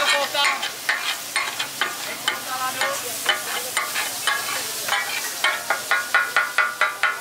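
Metal spatula striking and scraping a flat iron griddle, chopping and turning meat frying in oil. Sharp ringing clangs come about two a second, quickening to three or four a second near the end, over a steady sizzle.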